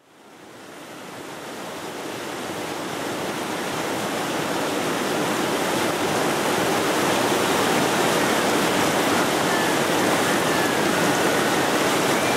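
Rushing white water of a fast mountain river running through rapids, a steady noise that fades in from silence over the first few seconds.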